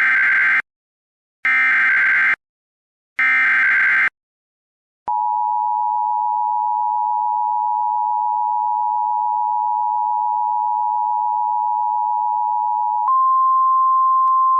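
NOAA Weather Radio Emergency Alert System alert tones: three short SAME header data bursts about a second apart, then a steady two-tone attention signal. About thirteen seconds in, this steps up to a single steady tone, the weather radio's 1050 Hz warning alarm tone.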